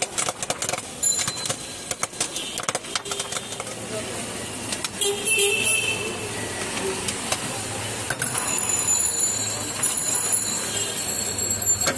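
Busy street traffic: a car passes close by and a vehicle horn toots a few times. In the first few seconds there are rapid clicks and rattles from the hand-cranked stovetop popcorn pan.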